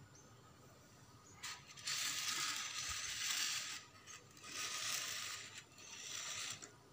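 Thin clear plastic food tray crackling in about four bursts as a hand grips and moves it.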